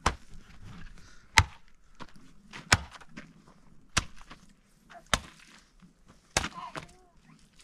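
Repeated heavy strokes of a hand tool chopping or hacking, six sharp blows evenly spaced about every second and a quarter.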